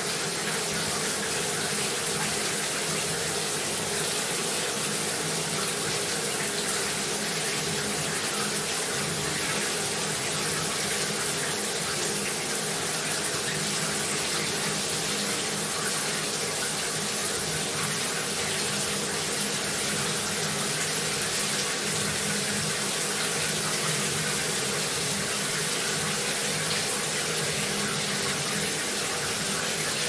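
Bathroom shower running: a steady, unbroken spray of water.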